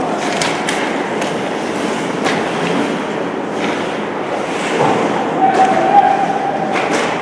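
Game noise in a large hall: scattered voices and a drawn-out shout over a steady background, with sharp knocks and thuds from the play dotted throughout.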